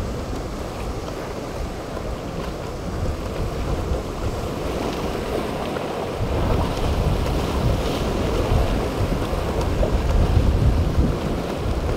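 Wind buffeting the microphone over rough surf, with a center-console boat's outboard motors running through the waves; it gets louder about halfway through.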